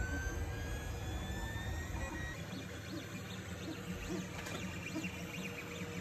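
Filament 3D printer at work, its stepper motors whining with sliding pitch as the print head moves, over a steady fan hum. About two seconds in the long glides give way to a run of short, quick chirps from rapid short moves.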